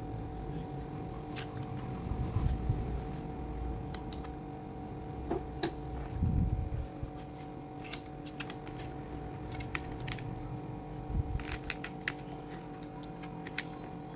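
Small plastic building pieces clicking and rattling as they are handled and fitted together, in scattered sharp clicks over a steady hum.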